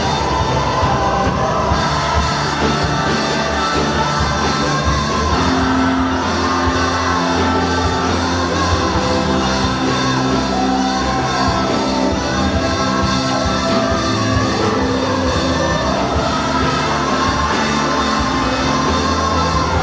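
Gospel band playing live, with singing over full-band accompaniment; the music is loud and steady throughout.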